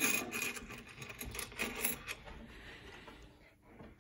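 Clicking and clinking of metal coins being handled at a 1960s Jennings Governor slot machine, busiest in the first two seconds and thinning out after.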